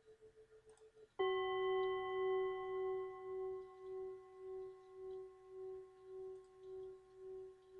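Tibetan singing bowls: the faint, fast-wavering tail of the higher A bowl fades out. About a second in, a lower F bowl is struck and rings on with several overtones and a slow, wavering pulse as it decays.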